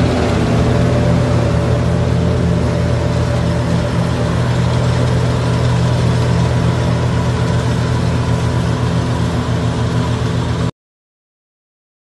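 Combine harvester running while cutting wheat: a steady engine hum with machinery noise, holding one pitch. The sound cuts off abruptly near the end.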